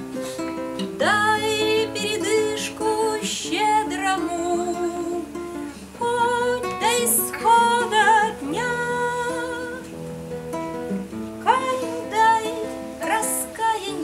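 A woman singing a Russian song while accompanying herself on an acoustic guitar.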